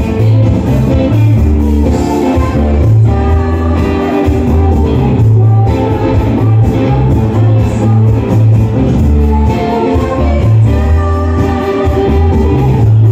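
Live rock band playing loudly: a prominent electric bass line under electric guitar and keyboards, with a woman singing.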